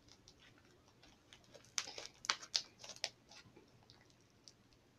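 Hands kneading and squeezing lime green slime, making faint sticky clicks and pops, with a quick cluster of louder ones about two to three seconds in.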